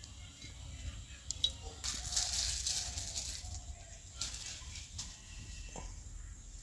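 A small plastic spice packet crinkling and rustling as it is torn open and picked at by hand, loudest between about two and three and a half seconds in, with a few small clicks.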